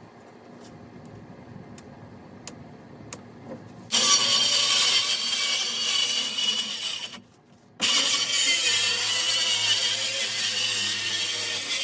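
A few faint clicks, then a power saw cutting loudly from about four seconds in. It stops for a moment and then cuts again.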